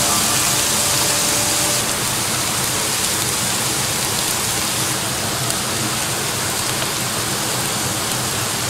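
Diced vegetable filling sizzling steadily in a hot wok, a continuous hiss a little louder in the first couple of seconds.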